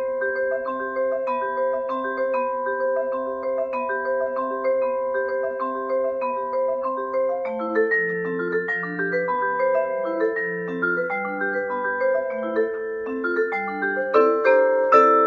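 Vibraphone played with four yarn mallets: a repeating figure of struck notes that ring on and overlap. About halfway through, lower notes come in and the pattern changes, and near the end the strikes grow louder.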